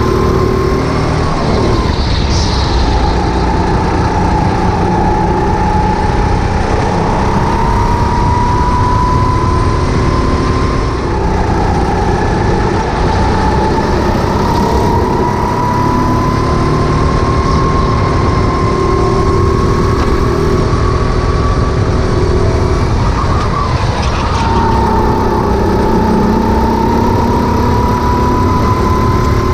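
Rental go-kart engine at full throttle around a lap, heard from the driver's seat. Its pitch drops sharply about 2, 11 and 24 seconds in, as the driver lifts off for corners, then climbs slowly as the kart accelerates again.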